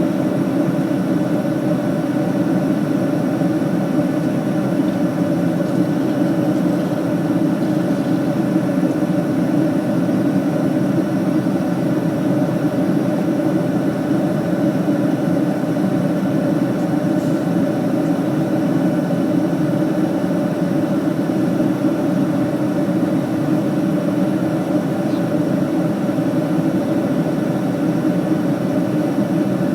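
Steady drone of an airliner cabin in flight: engine and airflow noise, even and unchanging, with a few faint steady hums over it.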